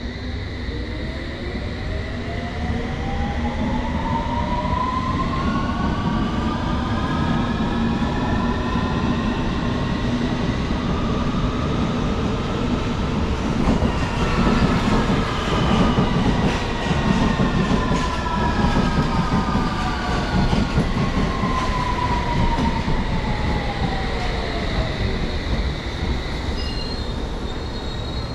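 London Underground District line S7 Stock train at the platform, its traction motors whining in several tones over a steady rumble of wheels on rail. The whine climbs in pitch over the first half and falls away over the second half.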